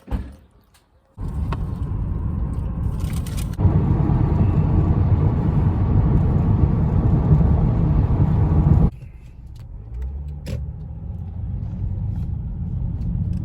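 Car road noise heard from inside the cabin while driving: a steady low rumble that starts suddenly about a second in, gets louder a few seconds later, and drops back to a quieter rumble near the nine-second mark.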